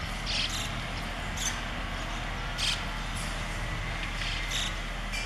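Outdoor ambience: a steady background hiss and low hum, with a few short, high-pitched ticks scattered through it.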